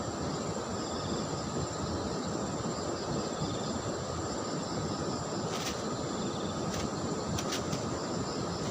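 Steady rushing of flowing stream water, with insects chirping and droning over it and a few faint sharp ticks in the second half.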